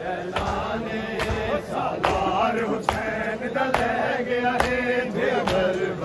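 A crowd of mourners chanting a noha together, with sharp unison chest-beating (matam) slaps keeping an even beat of a little more than one a second.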